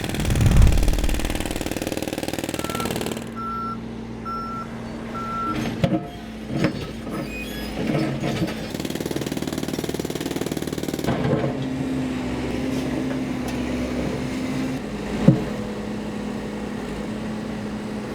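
Heavy machine's engine running steadily, with a reversing alarm beeping four times about three seconds in. A low thud comes just after the start, and scattered knocks and clanks are heard.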